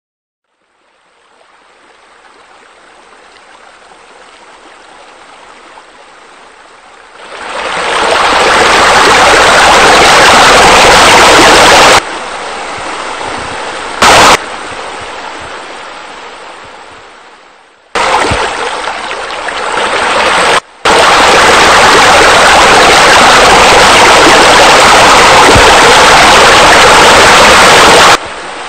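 Steady rushing and splashing of falling water, like pool fountains and a spa spillover. It fades in softly, turns loud about seven seconds in, and then cuts abruptly between loud and quieter stretches several times.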